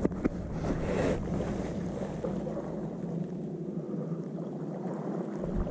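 Sea water washing against shoreline rocks over a steady low hum, with two sharp clicks right at the start.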